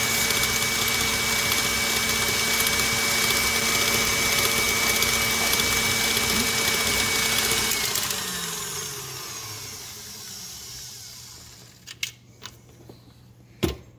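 Electric stand mixer's motor running steadily as its flat beater whips butter in a stainless steel bowl. About eight seconds in it is switched off, and its whine falls in pitch as it spins down. A few clicks and a loud knock follow near the end.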